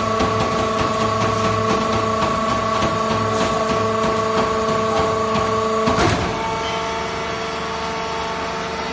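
Fiber baler machine running with a steady mechanical hum made of several held tones and faint regular ticking. About six seconds in there is a clunk, after which the hum shifts in pitch and runs a little quieter.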